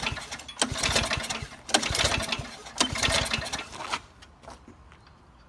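The Yerf Dog go-kart's small engine being pull-started: three hard pulls of the recoil starter, about a second each, the engine turning over without catching. The pulls stop about four seconds in.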